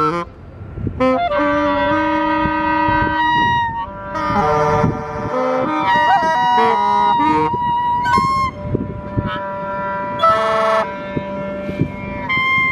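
Clarinet and saxophone in free improvisation, playing long held notes that overlap and shift in pitch every second or two, with short breaks between phrases.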